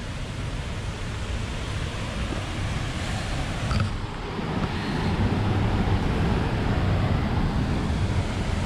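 Steady rushing roar of a waterfall and fast creek water, strongest in the low end, growing a little louder about halfway through.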